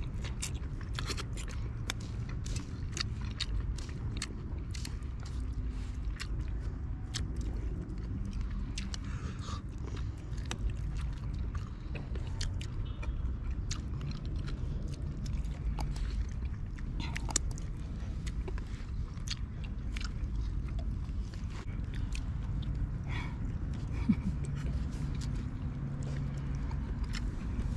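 Close-up eating sounds: someone chewing and biting food, with many small crunches and clicks over a steady low rumble.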